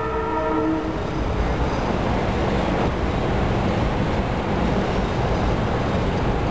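Hyundai Rotem Silverliner V electric multiple-unit train running close by: a steady rumble and rush, with a brief chord-like tone fading out about a second in.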